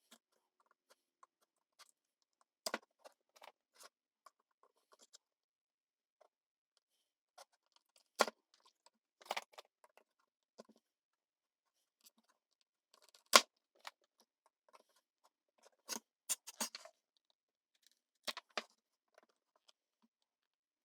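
Scattered sharp clicks and snips of small bench tools working on an amplifier's power-supply circuit board while its old filter capacitors are removed. They come irregularly, a few every couple of seconds, and the loudest fall about 8 and 13 seconds in.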